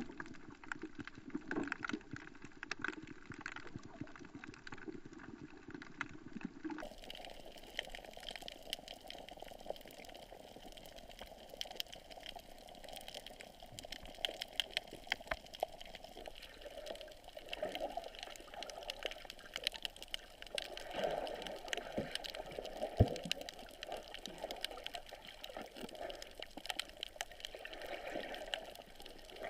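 Sea water heard through a GoPro camera's waterproof housing: muffled sloshing and gurgling with many small clicks and crackles. The sound changes abruptly about seven seconds in.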